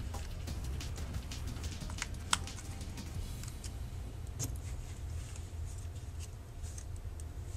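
Small irregular clicks and light scraping of plastic as a tool pries the top and bottom plastic caps off an iPod mini. There is a sharper click about two seconds in and another about halfway, over a steady low hum.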